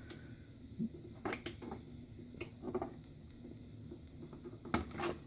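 Scattered light clicks and taps of a butter knife prying at the snap-on plastic inner panel of a microwave door, with a quick cluster of clicks near the end.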